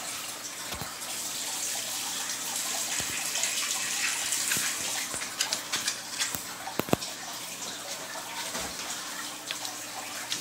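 Aquarium water running and splashing steadily, with a few sharp clicks between about five and seven seconds in.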